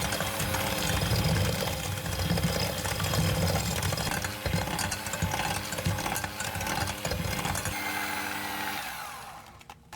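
Electric kitchen mixer running steadily through a bowl of batter or butter and sugar, then fading out near the end.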